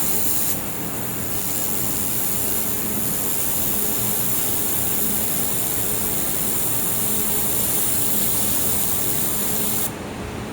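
Handheld laser welder running a bead on aluminum while filler rod is pushed in by hand: a steady high hiss that dips briefly about half a second in and cuts off suddenly near the end. A steady low machine hum runs underneath.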